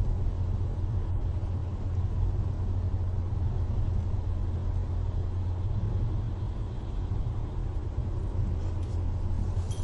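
Steady low rumble of a car driving, heard from inside the cabin: engine and road noise picked up by a dashcam.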